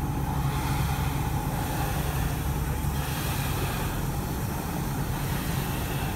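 Steady drone of a boat's engine, with a continuous hiss of wind and water over it.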